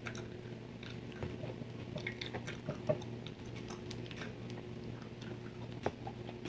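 Close-miked gum chewing: irregular soft wet clicks and smacks, with a couple of sharper clicks, over a faint steady hum.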